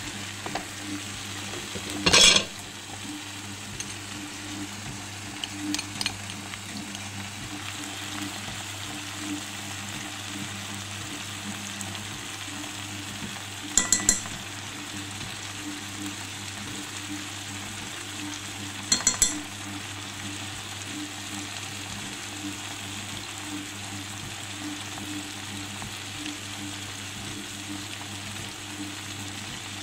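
Chicken drumsticks and potatoes sizzling steadily in a frying pan, with a few sharp clatters, the loudest about two seconds in. About halfway, frozen peas are poured from a plastic bag into the pan with a brief rattle of clicks.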